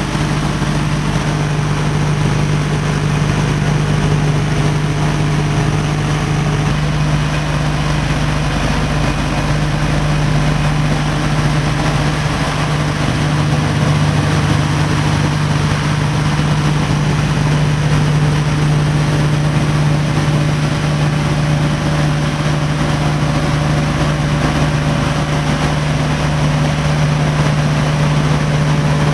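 Steady drone of a B-25 Mitchell's radial piston engines in flight, heard from inside the glazed nose, with a strong low hum throughout. The tone shifts slightly about seven seconds in.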